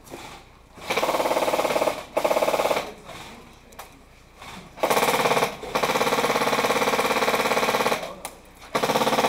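Airsoft electric rifle firing on full auto in several rapid bursts, the longest about two seconds, each a fast even stream of shots with the gearbox cycling.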